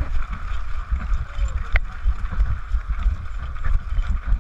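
Wind buffeting the action camera's microphone as the player runs, a heavy uneven rumble with footfalls and gear knocking, and one sharp click about two seconds in.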